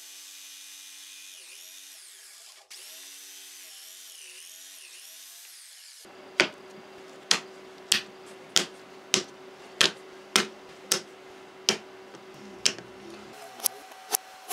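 Electric jigsaw cutting plywood, its motor whine dipping and recovering in pitch as the blade loads, for about six seconds. It is followed by a run of sharp, evenly spaced clicks over a faint steady hum, about two a second at first and quicker near the end.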